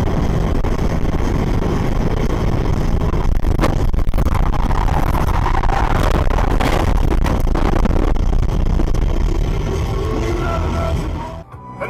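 Loud, steady rumble of a car at speed, road and wind noise heavy on the dashcam microphone, with a few sharp knocks about four and about seven seconds in as the car runs off the road and tumbles. The noise cuts off suddenly near the end.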